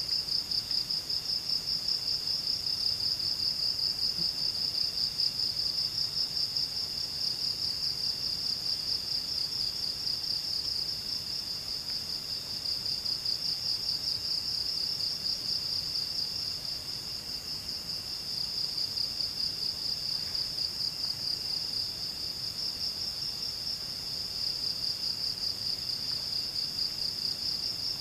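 Insects trilling in the forest: one continuous, rapidly pulsing high-pitched trill, with a fainter, lower trill starting and stopping over it.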